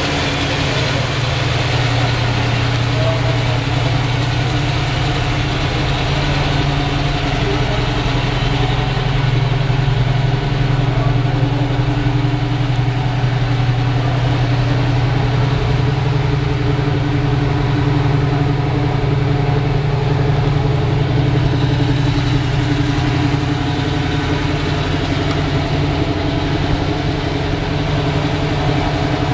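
1967 Chevy II Nova SS's 327 cubic-inch four-barrel V-8 with dual exhaust, idling steadily.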